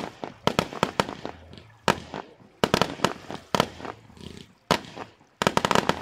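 Aerial fireworks shells bursting: a string of sharp bangs, some single and some in quick clusters, with a rapid volley of bangs near the end.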